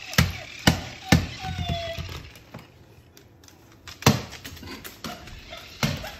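A cockatoo playing with a toy on a wooden floor: five sharp knocks and taps spread unevenly, three close together early, then a quieter gap and two more. A short falling squeak comes about a second and a half in.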